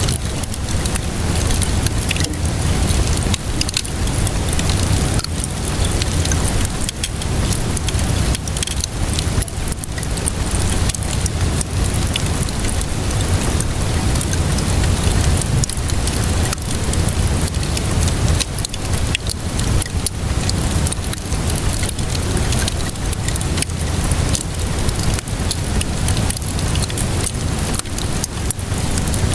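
Steady rainfall mixed with a crackling wood fire: a dense hiss with a low rumble under it, dotted with many small pops and crackles.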